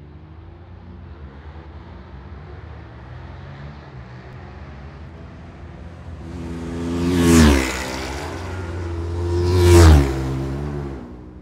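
Two racing motorcycles pass at speed one after the other, about two and a half seconds apart. The engine note builds as each one approaches and drops sharply in pitch as it goes by, and the second pass is the louder.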